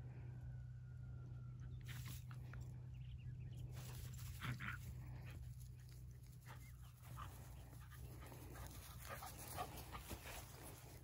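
Border Collies at play: faint short dog yips, the loudest about four and a half seconds in and again near the tenth second, over a steady low hum.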